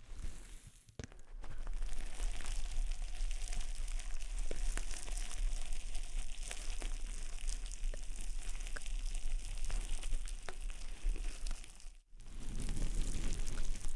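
Dense, close-up crackling and crinkling noise full of fine clicks, an ASMR trigger sound. It cuts out briefly near the end and then resumes.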